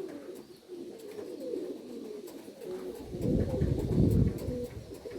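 Domestic pigeons cooing repeatedly in low, wavering notes. About three seconds in, a louder, deeper rumble joins the cooing.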